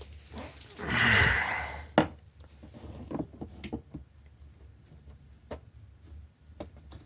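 Packaging of a socket set being handled and opened: a loud rasping noise lasting about a second near the start, then scattered light knocks and clicks.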